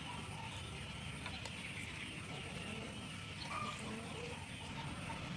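Steady low background noise with a few faint short calls and faint clicks.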